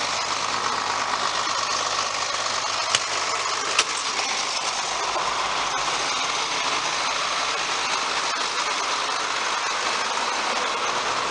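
John Deere 4450's six-cylinder diesel engine idling steadily at about 1,000 RPM with the PTO disengaged. Two sharp clicks sound about three and four seconds in.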